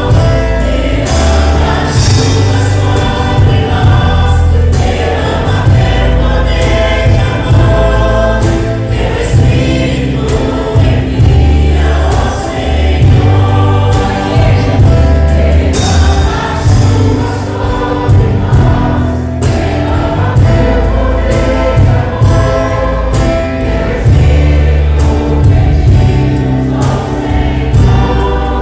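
Choir singing a Christian gospel praise song with band accompaniment, a strong steady bass line and a regular beat underneath.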